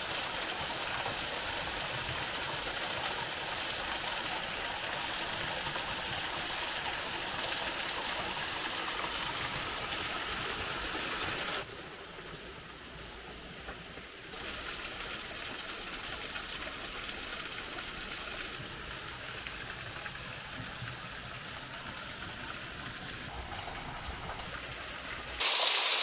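Falling water of a mountain waterfall, a steady rushing hiss. It drops abruptly quieter about twelve seconds in, picks up again a couple of seconds later, and jumps louder just before the end.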